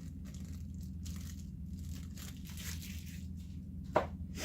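Plastic packaging rustling and crinkling as small accessories are handled and pulled from an optic's box, with one sharp click about four seconds in.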